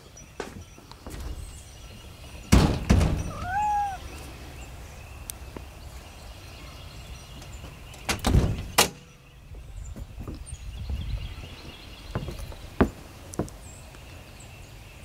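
A door thudding open and shut: a few heavy knocks about two and a half seconds in and again about eight seconds in, with lighter clicks later. A short high call comes just after the first knocks.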